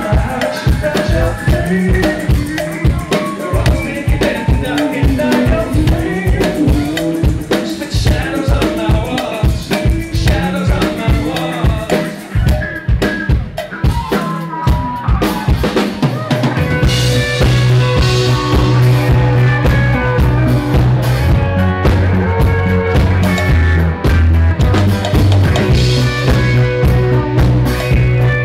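Live rock band playing an instrumental passage with a driving drum-kit beat and keyboards. About 16 seconds in, heavy sustained bass notes come in and the music fills out.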